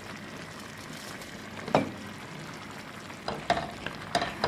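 Pot of tomato and vegetable sauce, with pasta just added, bubbling and sizzling steadily on the boil. A few sharp clinks come through, one about two seconds in and several near the end.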